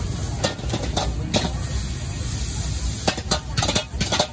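Steel ladle scraping and clanking against a wok as rice and egg are stir-fried over a gas wok burner, with steady sizzling and the low rush of the burner underneath. A few single clanks, then a quick run of clanks near the end as the wok is tossed.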